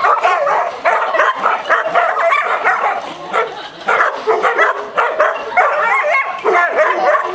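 A dog barking and yipping excitedly in quick, repeated short barks.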